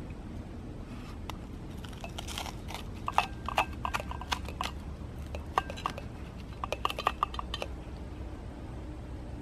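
Crisp toasted rye bread crackling and crunching under fingers as a hot sandwich is pressed down on a metal camp plate. The crackles come in two spells, from about two seconds in and again from about five and a half seconds.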